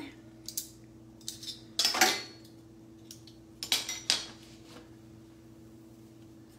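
Metal spoon clinking and scraping against containers while a teaspoon of an ingredient is measured out: a handful of short clatters over the first four seconds, the loudest about two seconds in.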